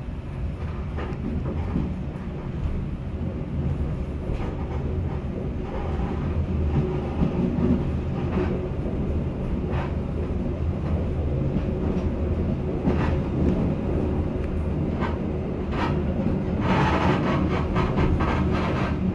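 A passenger train running along the track, heard from its rear car: a steady low rumble and hum with a sharp click from the wheels every few seconds. In the last few seconds, as the line bends into a curve, the clatter gets busier and louder.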